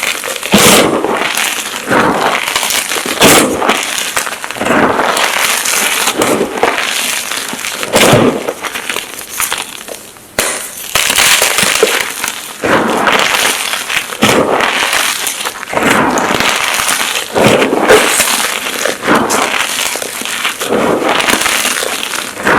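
Blocks of magnesium carbonate gym chalk being crushed and crumbled: dense, crunchy crackling in repeated squeezes every second or two, with a brief lull about halfway through.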